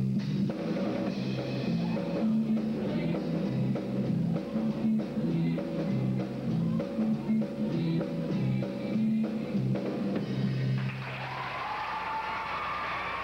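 Live band accompaniment to a show choir, with drum kit and a moving bass line, ending about eleven seconds in. A steady, even hiss-like noise with a faint held tone follows.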